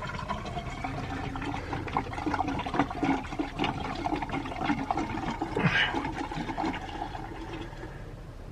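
Marine/RV antifreeze poured from a gallon jug into a disconnected cooling hose on a 4.3 Mercruiser engine, gurgling as it runs down into the water pump area and on into the manifold.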